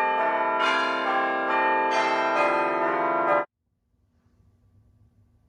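Church bells ringing, several strikes overlapping as each one rings on, then cut off suddenly about three and a half seconds in, leaving only a faint low hum.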